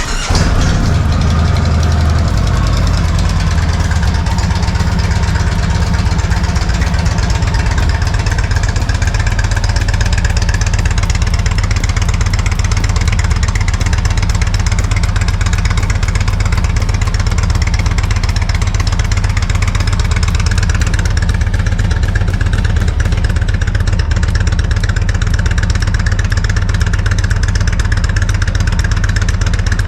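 Indian Thunder Stroke 116 V-twin engine of a 2020 Indian Springfield Dark Horse running at a steady idle through its stock exhaust slip-ons.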